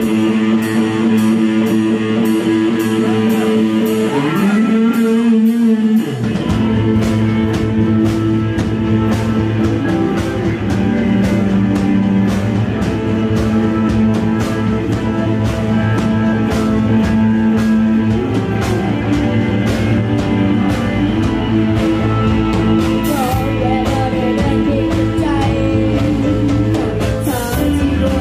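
A rock band playing: electric guitar and bass over a drum kit with a steady beat. The low end drops out for a moment about four seconds in, then the full band comes back in, and a boy's singing voice joins near the end.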